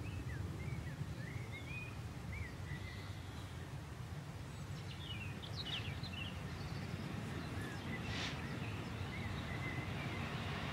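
Birds chirping in short bursts over a low steady rumble. Near the end the sound of the distant approaching diesel freight train begins to rise.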